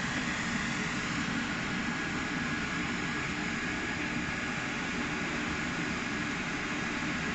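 Heat-shrink packaging machine for twin 9V batteries running: a steady mechanical drone with a low hum and a faint steady high tone.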